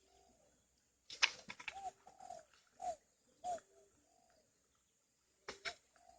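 Short animal calls, each a brief note that rises and falls, repeating every half second or so, mixed with sharp clicks.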